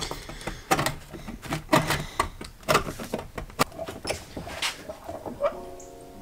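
Aviation snips cutting thin sheet metal by hand: a run of sharp, irregular snipping crunches, several a second.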